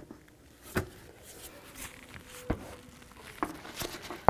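Scattered light clicks and knocks of hose clamp pliers gripping and moving a spring hose clamp on an upper radiator hose.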